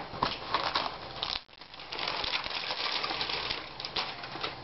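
A few sharp clicks and taps from laptop screen parts being handled. Then, from about two seconds in, a continuous crinkling rustle as the replacement LCD panel's anti-static foil wrapping is handled.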